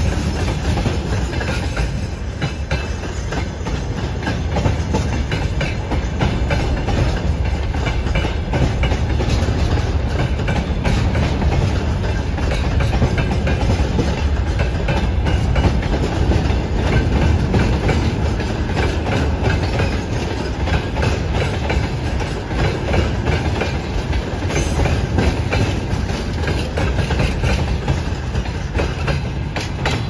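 Freight train wagons rolling past close by: a steady rumble of steel wheels on the rails, with a continuous run of clicks as the wheels pass over rail joints.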